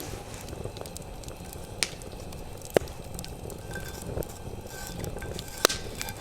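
Campfire of burning wood crackling, with three sharp pops standing out above a low steady hiss.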